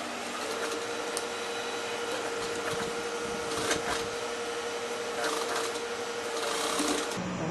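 Industrial sewing machine stitching a seam through denim: a steady mechanical hum with light clicking that starts about half a second in and stops shortly before the end.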